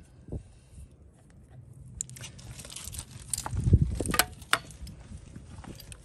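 Handling noise from an air-hose tire inflator being brought to a truck's valve stem: scrapes, crunching on gravel and a few sharp clicks. It begins about two seconds in, with a dull bump near the middle.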